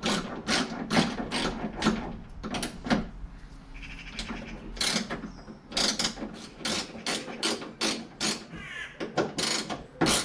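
Ratchet socket wrench clicking as it is worked back and forth on a nut, in runs of sharp clicks about two to three a second with a short pause a few seconds in; the nut is not yet coming loose.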